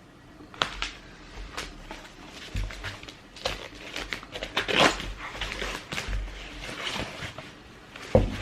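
Handling noise from trainers and their packaging: irregular rustling, clicks and soft knocks, with a couple of dull thuds.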